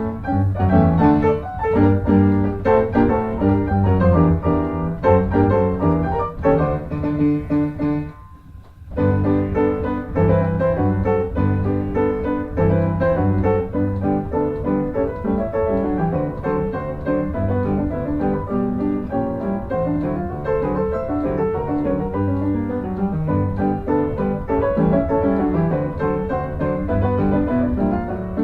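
Piano music: a steady flow of quick notes over a low bass line, breaking off briefly about eight seconds in before going on.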